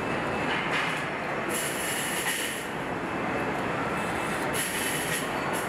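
Truck assembly-plant floor noise: a steady din of machinery across the line, with two spells of high hiss, about a second and a half in and again near the end.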